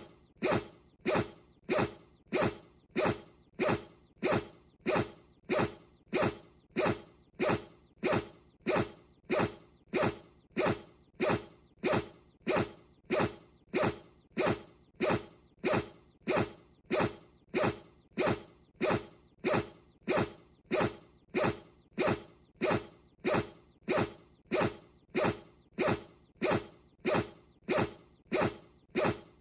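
Bichon frise sneezing over and over in a steady, unbroken rhythm, a little under two sharp sneezes a second, each one the same.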